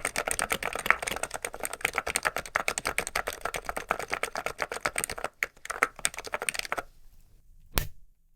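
Fast, continuous typing on an ABKO KN30BT electro-capacitive keyboard fitted with MOA-profile keycaps. The typing stops about seven seconds in, and there is one more click near the end.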